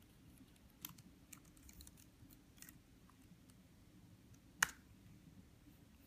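A few scattered light clicks, with one sharper, louder click about four and a half seconds in.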